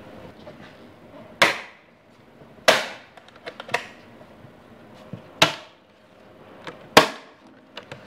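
Sharp clacks and clicks of hard plastic and metal parts being handled and unclipped as a motorcycle airbox is dismantled: five loud clacks a second or so apart, with fainter clicks between.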